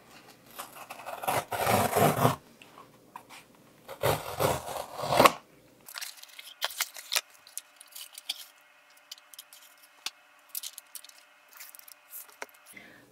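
Cardboard mailer envelope torn open along its tear strip in two long rips, about a second in and again about four seconds in. Then quieter crinkling and rustling as the plastic-wrapped notebook is slid out of the envelope.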